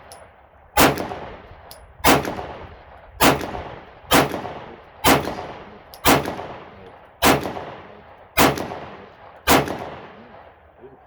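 Nine 9mm pistol shots from a Glock 17 Gen 5, fired at a steady pace of about one a second, each with a sharp crack and an echoing tail. The string stops after the ninth shot, where a spent case stovepiped in the ejection port.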